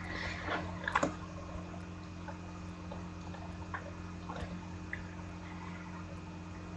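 Faint clicks and light taps from trading cards being handled, over a steady electrical hum.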